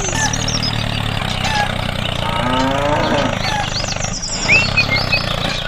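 A cow mooing once, a pitched call about two and a half seconds in that rises and then falls, over a steady low engine hum, with birds chirping here and there.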